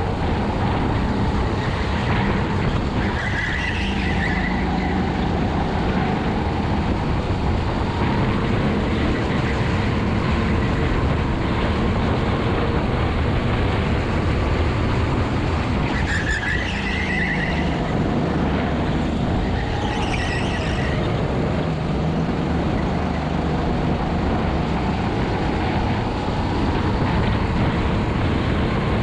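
Honda GX200 single-cylinder four-stroke kart engine running under racing load, its pitch rising and falling as the kart accelerates and slows through corners. Three brief high-pitched squeals cut through it, about three seconds in and twice more past halfway.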